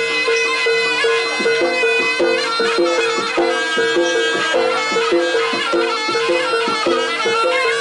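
Live jaranan music from an East Javanese gamelan-style ensemble: a fast, evenly repeating pattern of pitched notes over drum strokes, with a reedy wind melody on top.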